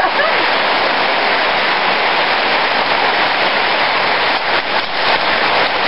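Hard rain falling steadily, an even dense hiss with no let-up.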